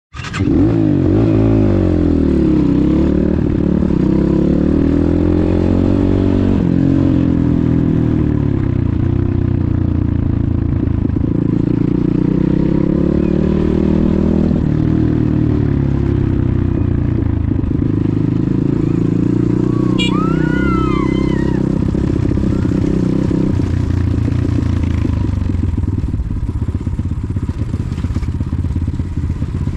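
Enduro motorcycle engine running hard, its revs rising and falling again and again. A short, high, arching chirp comes about two-thirds of the way through.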